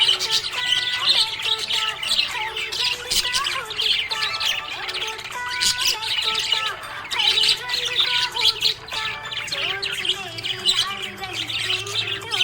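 Budgerigar chirping continuously in quick, dense runs of high notes, over a background melody of held, stepping tones.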